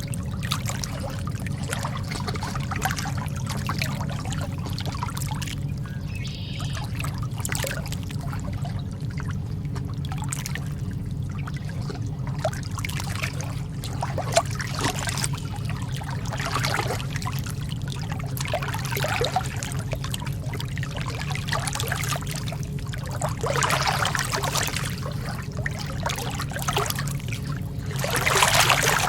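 Calm sea water lapping, with small irregular splashes and trickles over a steady low rumble. Twice, late on, a slightly bigger wash comes in, the second one near the end.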